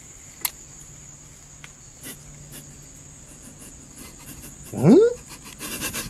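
A steady high-pitched chirring over faint hiss, with a few small clicks. About five seconds in comes one short, loud squeal that rises in pitch.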